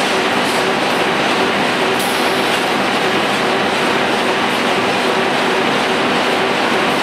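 Flexo folder gluer running in production: a loud, steady clatter of corrugated box blanks being carried and folded along the machine, over a steady hum.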